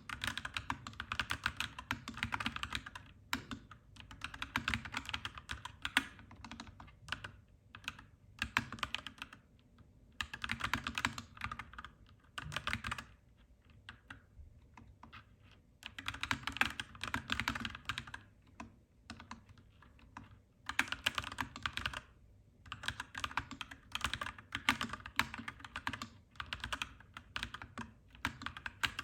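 Typing on a clacky mechanical keyboard, in fast runs of keystrokes lasting a few seconds each, broken by short pauses.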